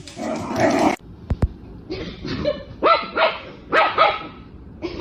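A dog barking: a run of short, sharp barks, about five of them in the last three seconds.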